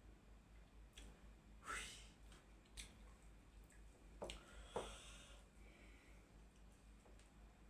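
Quiet mukbang eating sounds: soft chewing and small sharp clicks and crunches, with a few louder ones about two, four and five seconds in, over a low steady hum.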